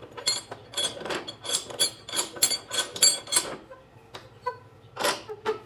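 Rapid run of light, sharp metallic clinks and knocks, about five a second for some three seconds, then a few scattered ones.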